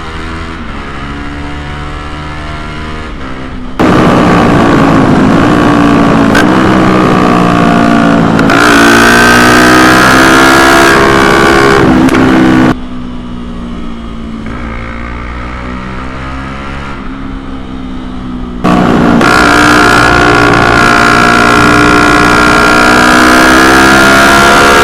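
Motorcycle engine running on the move, its pitch rising and falling as the rider works the throttle through the gears. The sound jumps sharply louder about four seconds in, falls back to a lower level a little before the halfway point, and jumps loud again in the last quarter.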